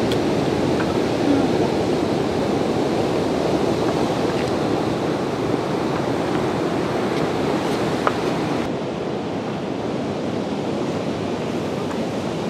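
Pacific surf breaking on a rocky shore, a steady rushing wash that drops slightly in level about two-thirds of the way through, with a single light tap about eight seconds in.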